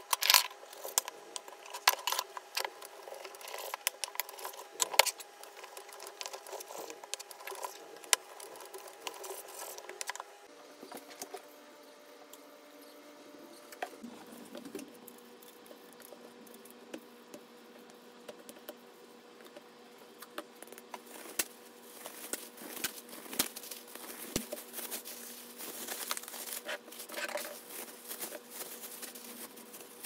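Kitchen knife cutting raw beef on a wooden cutting board, with sharp knocks of the blade against the board through the first ten seconds. After a quieter stretch, clear plastic bags crinkle and rustle with small knocks toward the end as the meat is packed.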